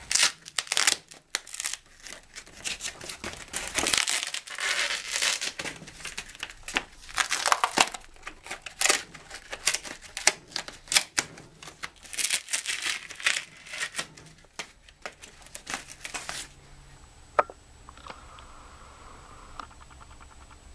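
Foam edge strips being peeled and pulled off the edge of cured self-leveling underlayment: a run of irregular tearing and crinkling noises that stops about three-quarters of the way through, after which only a faint steady hum remains.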